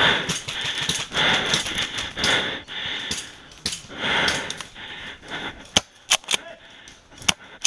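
Airsoft rifle firing single shots: a handful of sharp cracks, spaced irregularly, through the last two seconds. Before that comes a stretch of uneven rustling noise.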